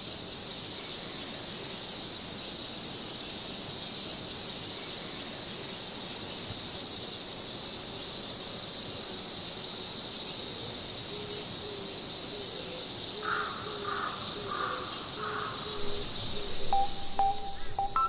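A steady, pulsing high insect chorus, with a crow cawing four times in an even series about two-thirds of the way in. Music notes come in near the end.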